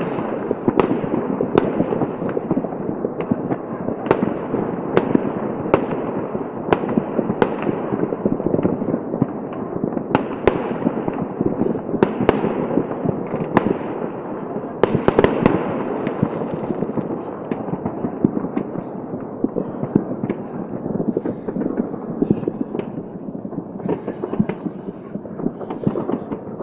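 Fireworks going off all over the city at once: a continuous barrage of overlapping distant bangs and crackle, with sharper single bangs every second or so and a louder cluster about halfway through.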